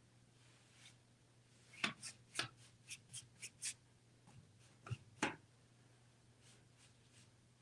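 Paintbrush dry-brushing paint onto a painted wooden wardrobe door: a run of about nine short swishes between about two and five and a half seconds in, over a faint low hum.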